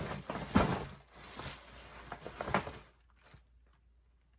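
Paper shopping bag and tissue paper being handled, rustling and crinkling with a few sharp crackles, stopping about three seconds in.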